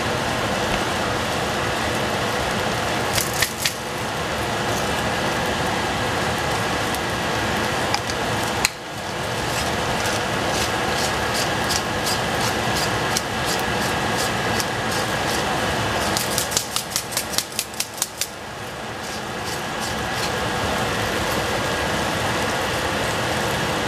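Food frying in a pan with a steady hiss, broken by a short run of sharp clicks about three seconds in and a rapid series of about a dozen clicks later on.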